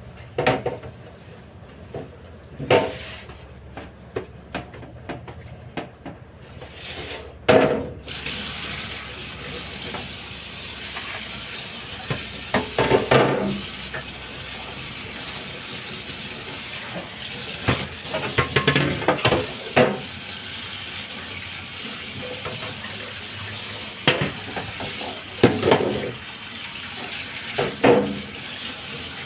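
Clattering and knocking of items being handled for several seconds, then a kitchen tap is turned on about eight seconds in and runs steadily into the sink, with repeated knocks and clatters of things being washed under it.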